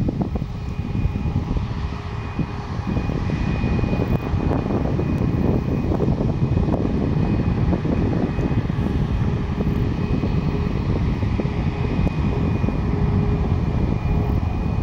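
The CFM LEAP-1B turbofan engines of a Boeing 737 MAX 8-200 running as the jet rolls slowly along the runway. It is a steady rumble with a thin high whine, and the whine rises slightly near the end.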